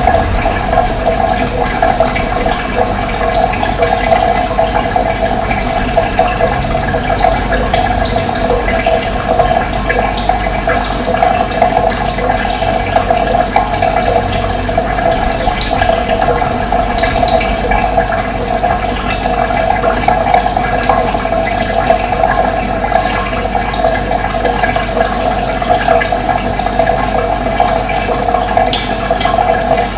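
Running water, a steady, even rush of flowing water.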